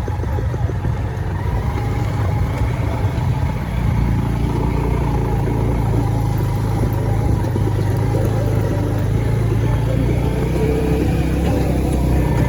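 A motor vehicle's engine running steadily under way, a low rumble with road noise, getting a little louder about four seconds in.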